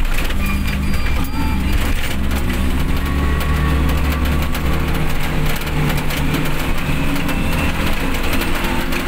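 Van engine running steadily while driving on a wet road in heavy rain, heard from inside the cab. The low engine hum sits under a steady hiss of rain and tyre spray.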